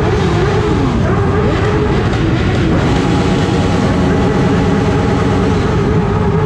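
Many motorcycle engines running together, idling with repeated revs that rise and fall and overlap.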